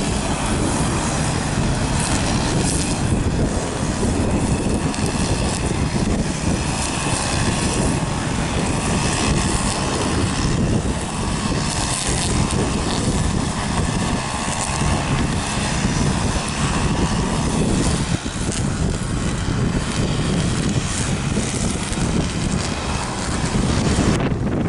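Jet airliner engines running, a steady rush with a faint high whine over it, mixed with strong wind buffeting the microphone.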